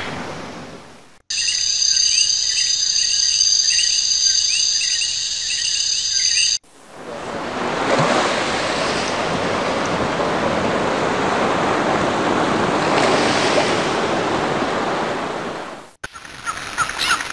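A run of separate nature sound-effect clips cut one after another. First, a short stretch of high chirping calls over a steady high buzz. Then a long rushing noise like surf that swells and fades, and near the end a burst of quick chirps begins.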